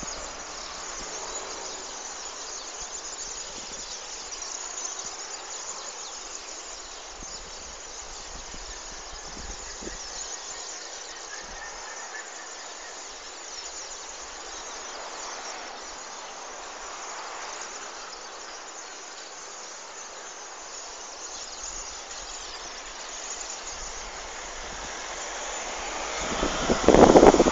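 Steady travel noise of a moving vehicle heard from inside, an even hiss. About a second before the end it swells into a loud rush.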